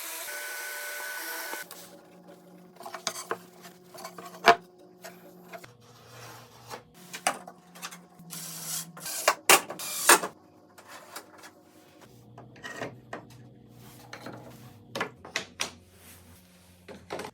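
A power tool runs briefly with a steady whine, then stops. After that comes a series of irregular knocks, clicks and clatters of wooden pieces and tools being handled and set in place.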